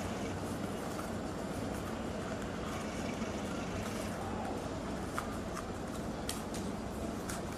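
Steady low rumble, with a few crisp crackles a little after halfway and near the end as palm-leaf strips are pulled and tucked while weaving a ketupat casing.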